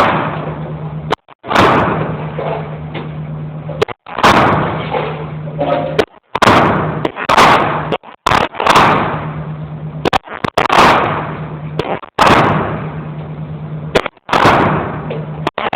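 Shots from a .22 handgun at a shooting range: about fourteen sharp cracks at irregular intervals, sometimes two in quick succession, each ringing out in a short echoing tail. A steady low hum runs underneath.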